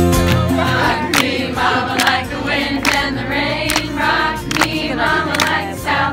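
A group of voices singing a chant-like song together, with a sharp beat about once a second.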